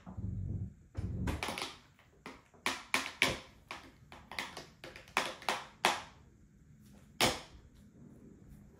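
Light plastic taps and knocks of toddlers' straw cups and straws against plastic booster-seat trays: an irregular run of clicks, then one more near the end.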